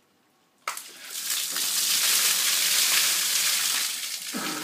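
A bucket of ice water poured over a man's head, splashing down his body onto the paving: a rushing gush that starts abruptly just under a second in, holds steady and tapers off near the end.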